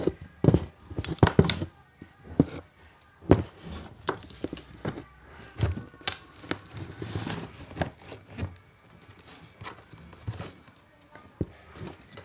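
Handling noise: irregular knocks, taps and rustling as hands move parts and a wooden block around a homemade battery-and-bulb board.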